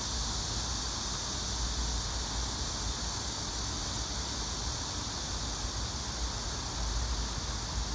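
Steady outdoor ambience: a low, uneven rumble under an even hiss.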